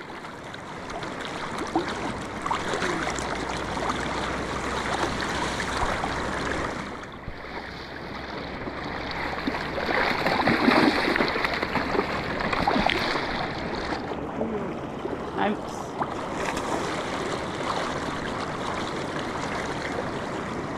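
River water flowing past, a steady wash of current, with faint voices in the background.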